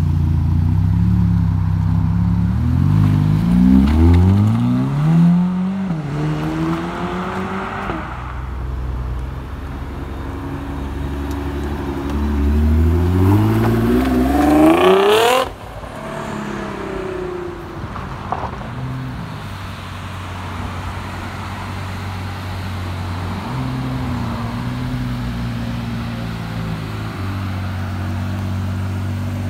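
Supercar engines as cars pull away one after another. A low idle gives way to a car accelerating with its revs climbing a few seconds in. About halfway through, a second long climbing rev cuts off sharply. A low steady idle of the next car follows.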